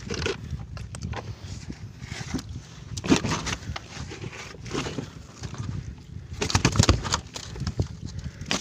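Knocks and rustling from fish and rope netting being handled on a boat's deck, over a steady low rumble. The sharpest knocks come about three seconds in and again near seven seconds.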